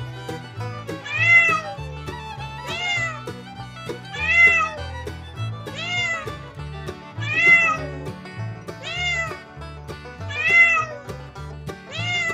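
Domestic cat meowing over and over, about eight meows each rising then falling in pitch, one every second and a half or so, over background music.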